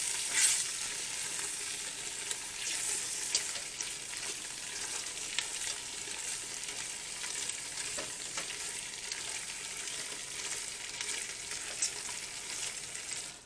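Andouille sausage frying in a pot of hot roux with sautéed vegetables, being stirred: a steady sizzle with scattered clicks of the utensil against the pot, which stops suddenly at the very end.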